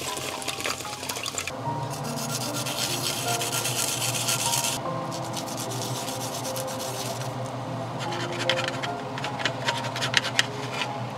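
A garlic clove rasped on a flat metal grater, a dense scratchy grating through the first half. Near the end, a metal spatula scrapes and clicks against the bottom of a clay pot of liquid.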